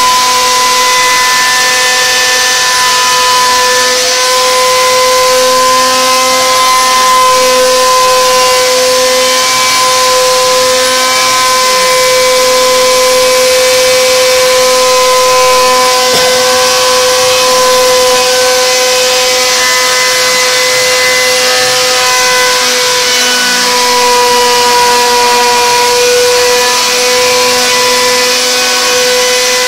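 CNC router spindle whining at a steady high pitch while its bit carves wood, with a continuous hiss of cutting over it.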